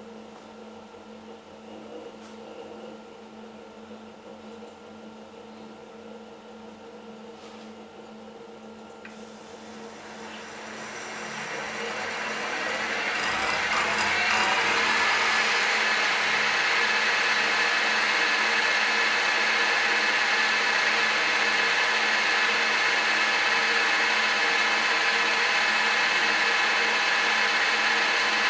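TOS FN20 milling machine starting up: a steady hum comes on at the start. About ten seconds in, a whine climbs in pitch and grows louder over a few seconds, then settles into a steady, high-pitched running sound.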